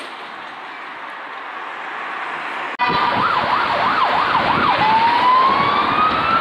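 Police car siren: a fast yelp of rapid up-and-down sweeps, about two a second, that changes into a slow rising wail. It comes in suddenly about three seconds in, after a steady rush of traffic noise.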